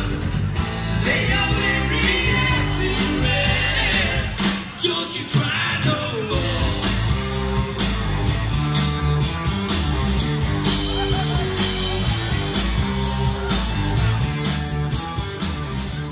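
Live rock band playing: a singer over electric guitars, bass and drums, heard through the PA. There is a short break about four and a half seconds in, then the drums keep a steady beat.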